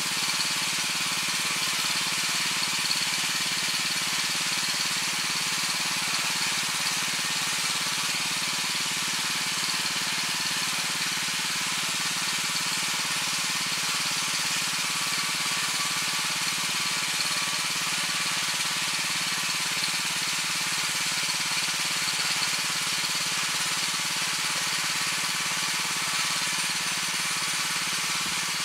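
Weima WM 900 7 hp tiller with rotary tines running steadily, a constant engine noise that does not rise or fall.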